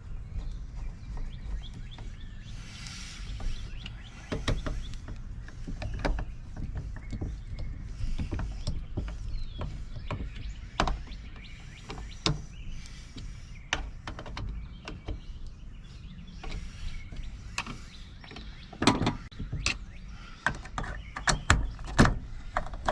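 Small metal clicks and knocks of mortise lock parts being handled and fitted during reassembly, scattered irregularly and coming thicker and louder near the end, over a steady low rumble.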